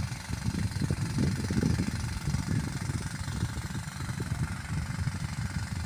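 An engine running steadily with a low, uneven rumble.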